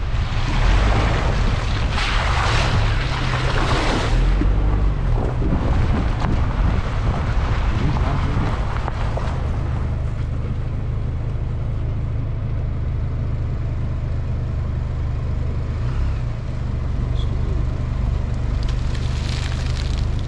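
GMC Canyon pickup driving on soft sand in four-wheel drive: a steady low engine and drivetrain rumble, with swells of rushing noise in the first few seconds, again about eight seconds in, and near the end.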